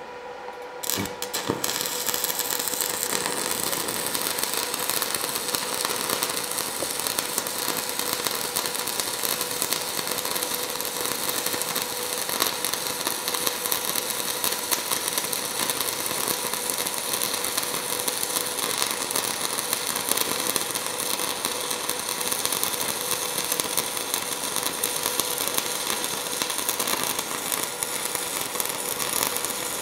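Manual stick (shielded metal arc) welding with a 3 mm electrode: the arc is struck about a second in with a few sharp crackles, then burns with a steady crackle as the seam joining two plates is run. A faint steady hum sits underneath.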